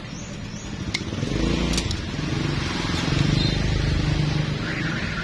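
Yamaha F1ZR two-stroke motorcycle engine running, picking up and revving from about a second in, its pitch rising and falling.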